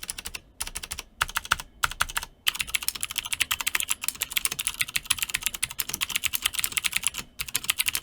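Typing on a Cherry MX 2.0S mechanical keyboard fitted with clicky Cherry MX Blue switches. Quick runs of sharp key clicks with a few short pauses in the first couple of seconds, then fast, unbroken typing with one brief pause near the end.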